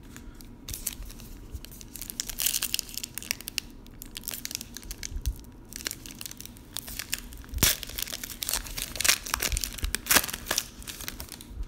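Foil wrapper of a baseball card pack crinkling and tearing as it is ripped open by hand, a dense run of sharp crackles that is loudest in the second half.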